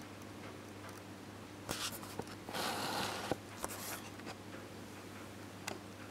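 Camera handling noise: a few sharp clicks and a brief rustling scrape between about two and a half and four seconds in, over a steady low hum.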